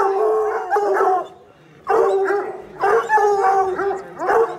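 A pack of tricolour Anglo-French hounds baying and yelping together, many voices overlapping, with a brief lull about a second in before they start again. This is the hungry pack's clamour as feeding time nears.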